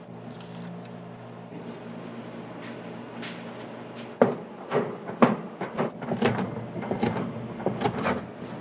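A steady low hum, then from about four seconds in a run of irregular sharp knocks as a kitchen knife chops beef tendon on a plastic cutting board.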